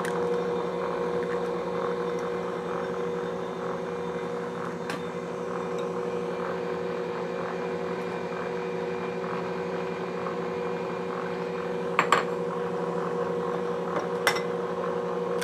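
Ankarsrum stand mixer running steadily on low, beating an egg into creamed butter cake batter, with an even motor hum at several fixed pitches. A few sharp clicks near the end.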